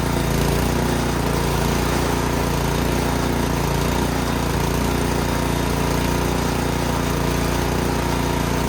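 Craftsman snowblower's small gas engine running steadily at an even speed.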